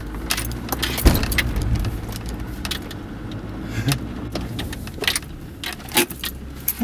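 Inside the cabin of a Land Rover Discovery 2 crawling over rough ground: the diesel engine runs low and steady under repeated sharp clicks and rattles from the jolting body and loose interior items, the loudest knock about a second in.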